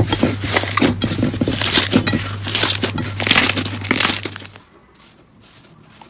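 Slime being squeezed and pressed by hand, giving a rapid run of crackling and popping that stops about four seconds in. A steady low hum runs underneath until then.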